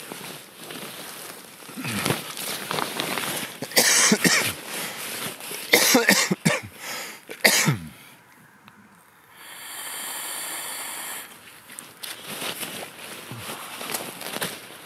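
A man coughing several times, in loud rough bursts.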